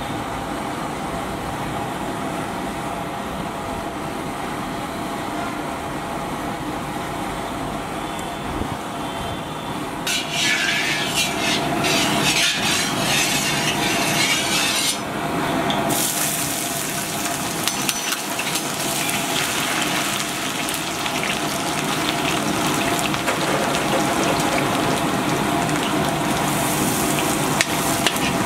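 Cooking oil in a large iron kadai over a steady background rush, with a ladle moving through the oil, then chopped garlic sizzling hard in the hot oil from about sixteen seconds in.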